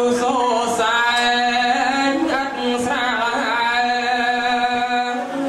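A man chanting Khmer smot, Buddhist sung poetry, into a microphone. It is one unaccompanied vocal line of long held notes that waver and bend in pitch, with a short dip about halfway.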